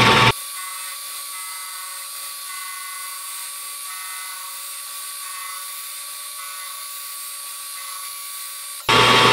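Metal lathe running with a cutting tool working the end of the spinning workpiece: a steady machine whine of several held tones. A louder, fuller machining noise fills the first moment and comes back near the end, cutting in and out abruptly.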